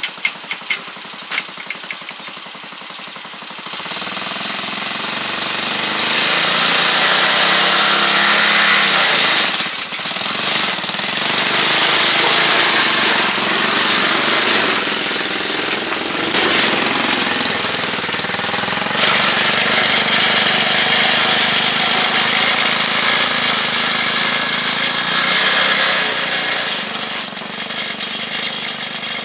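Engine of a motorised cargo tricycle, after a few sharp clicks at the start, running loudly from about four seconds in, its level rising and falling several times as it is revved.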